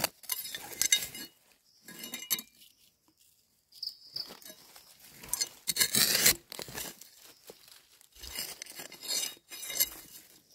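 Dry leaf litter and gritty soil rustling and crackling in irregular bursts as termite mushrooms are dug and pulled from the ground by hand, loudest about six seconds in.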